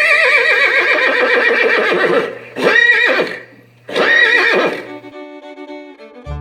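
Horse whinnying loudly: one long neigh with a shaking, wavering pitch, then two shorter neighs. Faint music comes in near the end.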